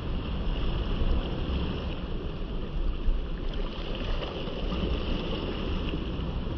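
Small waves washing onto a sandy shoreline, with wind buffeting the microphone as a steady low rumble.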